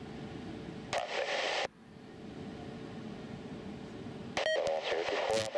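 Airband radio receiver tuned to air traffic control: a short burst of static hiss about a second in, then near the end a click and a brief beep followed by a longer hissy transmission, over a steady low background noise.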